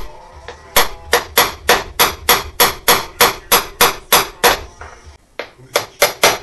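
Hammer striking a 36 mm socket to drive a new camshaft oil seal into its bore, in sharp, evenly spaced taps about three a second. There is a short pause a little past halfway, then quicker taps near the end.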